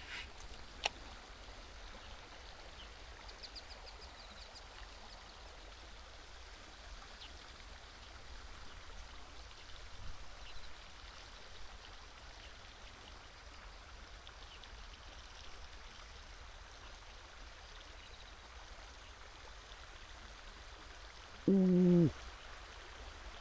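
Quiet outdoor ambience at the water's edge: a steady faint hiss, with two sharp clicks about a second in. Near the end comes a man's short, falling vocal exclamation.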